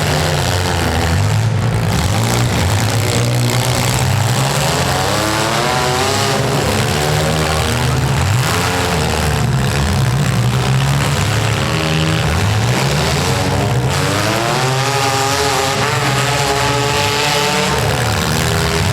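Several compact demolition-derby cars' engines revving at once, their pitches rising and falling and overlapping.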